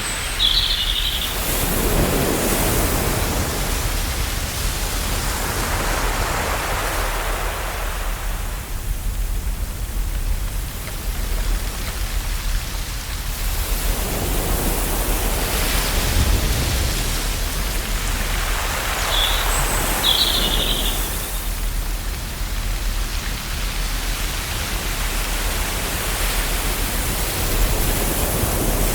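Ocean waves washing onto a shore, the surf swelling and easing off twice, with a brief high sound near the start and again about two-thirds of the way through.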